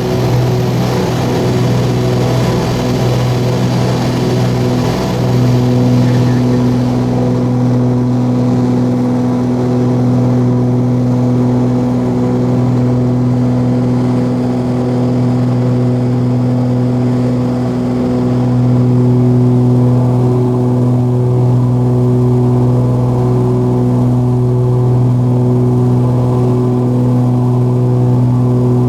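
Cessna 340A's twin turbocharged TSIO-520 piston engines and propellers running in a steady drone, with a low hum and its even overtones, swelling slightly about 5 and 19 seconds in.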